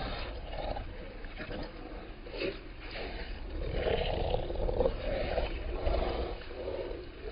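A French bulldog and a French bulldog–pug mix growling as they play-fight, the growls slowed down with the slow-motion footage and loudest in the middle.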